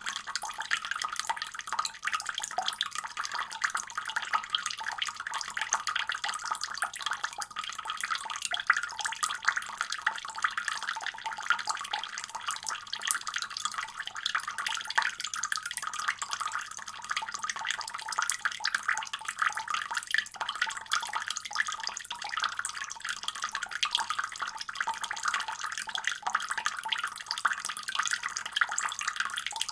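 Running kitchen faucet: a steady stream of tap water pouring and splashing into a sink, with a bright spattering texture.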